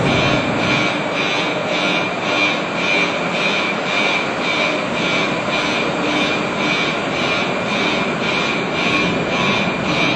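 Italian FS E.636 electric locomotive standing close by with its auxiliary machinery running: a loud, steady mechanical hum with a fixed whine and a regular pulsing about three times a second.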